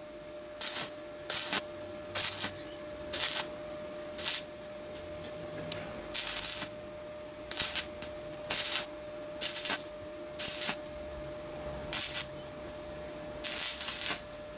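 Stick (arc) welding on thin steel exhaust pipe with a Flameweld MTA1650 multi-process welder set at about 78 amps. The arc is struck in short hissing bursts, about one a second, each lasting a fraction of a second, with a couple of longer runs near the middle and the end.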